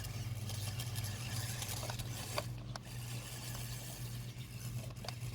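The electric drive motors and tracks of a toy tracked double-sided RC stunt car running, a steady low whir with a few faint clicks.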